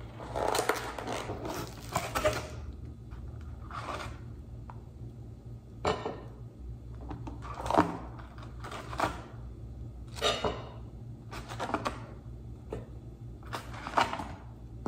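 Intermittent handling noises, short clatters and rustles every second or two, over a steady low hum.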